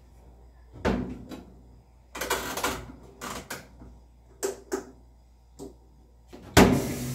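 Scattered plastic knocks and clatters as a top-loading washing machine's lid and a plastic detergent container are handled. Near the end a tap is opened with a loud knock, and water starts running in a steady hiss to fill the machine.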